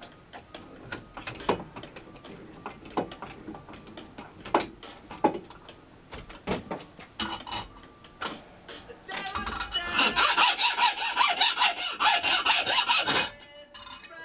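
Hand hacksaw handled at a workbench with scattered clicks and knocks, then, about nine seconds in, about four seconds of fast, rasping sawing strokes that stop shortly before the end.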